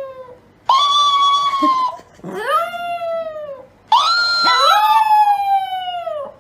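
Dog howling: three long, drawn-out howls, each sliding down in pitch at the end, with a second howl overlapping the last one.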